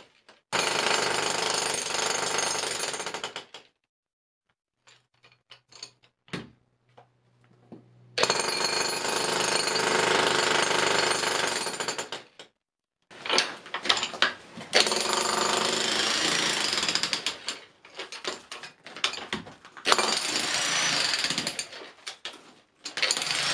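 Mac Allister 1700 W electric breaker hammering a pointed chisel into a concrete floor in several bursts of a few seconds each. The trigger is released between bursts, with one longer pause of about four seconds near the start.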